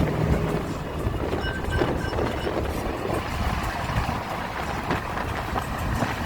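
Caterpillar 3208 V8 diesel engine running steadily with a low rumble.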